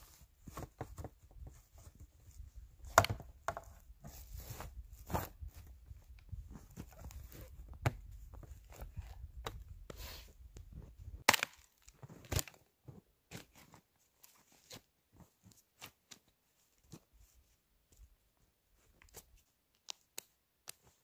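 Crunching snow and the rustling and clicking of gear being handled by hand: scattered sharp crunches and knocks, loudest about three seconds in and twice around eleven to twelve seconds in, over a low rumble that stops partway through.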